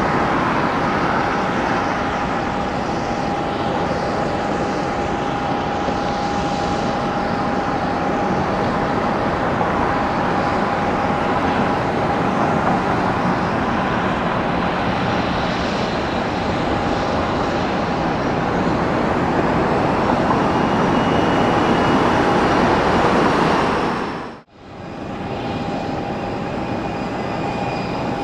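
Jet airliner engines with a steady whine over a broad rush of noise, growing louder toward about twenty-three seconds in. About twenty-four seconds in it drops away to near silence for a moment, then comes back a little quieter with the same whine.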